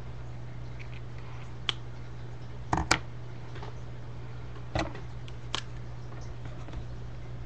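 A handful of light knocks and clicks, the loudest a quick double knock about three seconds in, over a steady low electrical hum.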